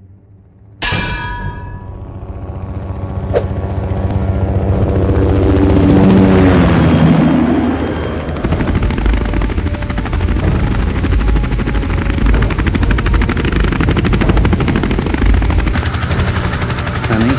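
Helicopter sound effect: after a sudden ringing hit about a second in, a rumble builds and gives way to a steady, rapid rotor-blade chop.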